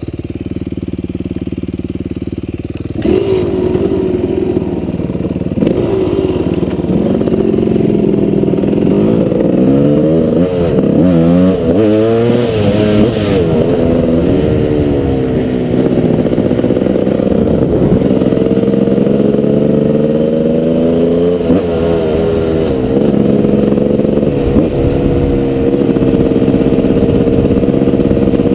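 GasGas 300 dirt bike engine idling, then about three seconds in pulling away and revving up and down through the gears before settling into a steadier run.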